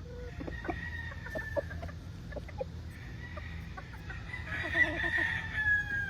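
Chickens: roosters crowing in long, drawn-out calls that overlap one another, with short clucking notes scattered between them. The loudest crow comes near the end.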